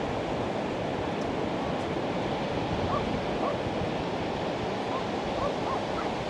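Pacific Ocean surf washing steadily onto the beach. Faint short rising chirps come through from about halfway in.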